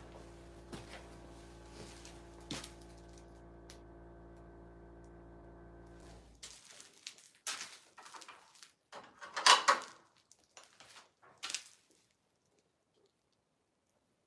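Light clicks and metallic rattles of hand work at an electrical panel, with a steady low hum that stops about six seconds in. A cluster of sharper clacks follows, the loudest about nine seconds in, and the sound cuts off completely about twelve seconds in.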